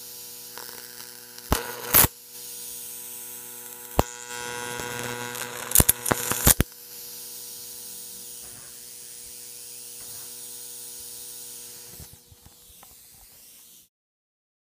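A homemade flyback-transformer high-voltage ion thruster (about 50 kV) buzzes with a steady hum and a corona-discharge hiss. Sharp arc snaps break it: two a second or two in, one at about four seconds, and a quick cluster of three around six seconds. A few faint crackles come later, and then it cuts off suddenly near the end.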